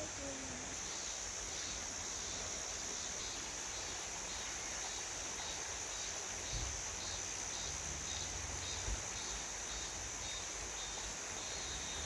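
Steady chorus of cicadas, a continuous high-pitched drone with a fainter call pulsing a few times a second, over the even rush of a mountain stream.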